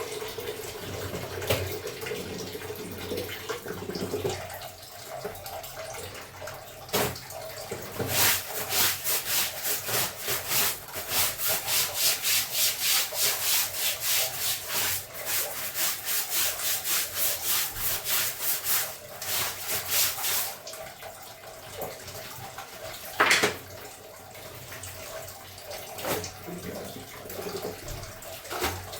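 Clothes being hand-scrubbed in the wash: a long run of even rubbing strokes, about two or three a second, through the middle, with softer rubbing and water around it. A single sharp knock comes near the end.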